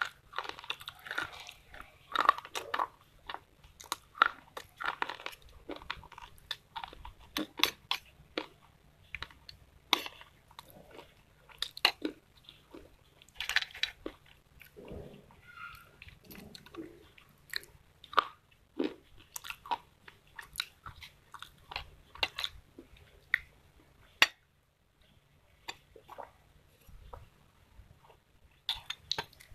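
Close-miked biting and crunching of slate pencil sticks, with sharp, irregular snaps and chewing crunches one after another, and a break of about a second about two-thirds of the way through.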